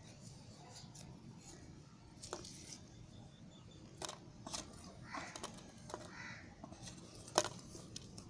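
A bar of soft soap being cut close to the microphone: short scraping rustles and a few crisp clicks, the sharpest about seven seconds in.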